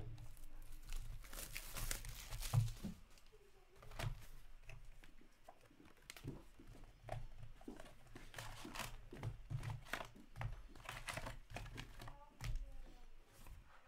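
An Upper Deck hockey card box being torn open by hand, then its foil card packs crinkling and rustling as they are pulled out and stacked, with a few light knocks of packs and cardboard on the table.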